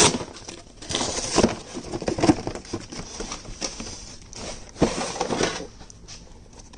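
Sealed cardboard mailing box being torn open and rummaged through: a sharp snap as it opens, then irregular scraping and rustling of cardboard and paper.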